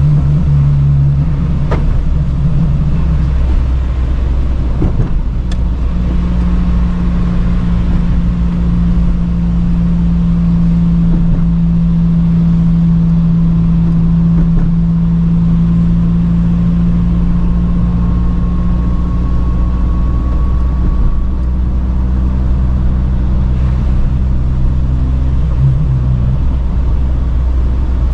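Car engine running with a steady low hum and road rumble while driving, the engine note holding even for most of the time, with a few faint clicks in the first few seconds.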